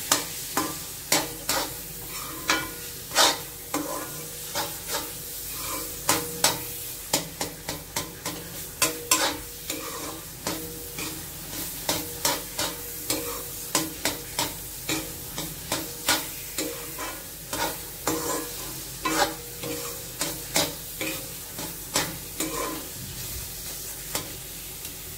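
Metal spatula scraping and knocking against a metal kadai as thick, nearly dry carrot halwa is stirred and turned. The strokes come unevenly, about twice a second.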